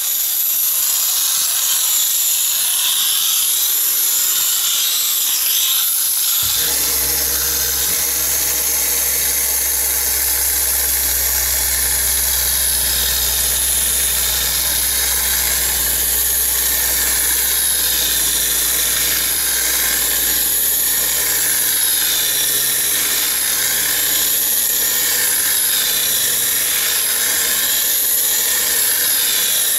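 Spinning steel gyroscope flywheel whirring at speed: a steady high whine like a drill. About six seconds in a steady low hum joins and holds, and the whine swells and fades slowly as the flywheel precesses.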